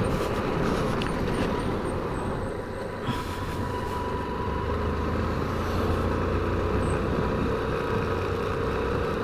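Motorcycle engine running steadily under way, mixed with the rush of wind over a helmet-mounted microphone.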